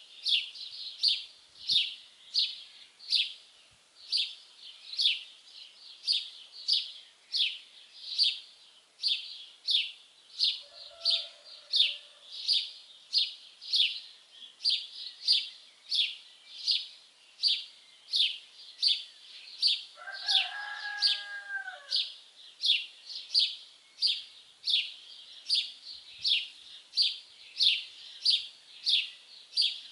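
Birdsong: one bird repeats a short, high chirp about twice a second throughout. A second, lower-pitched bird call comes in faintly about 11 seconds in and more clearly for about two seconds around the 20-second mark.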